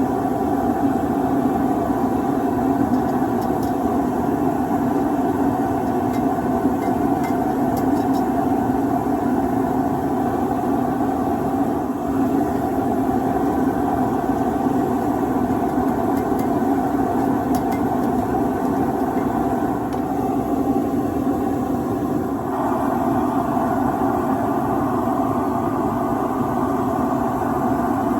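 Steady mechanical drone, as of a running motor or burner, that holds even throughout; its tone shifts about 22 seconds in.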